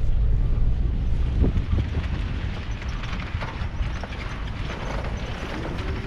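Off-road vehicle crawling along a rocky mountain trail: a steady low rumble of engine, tyres and wind on the microphone, with scattered clicks and knocks of stones under the tyres.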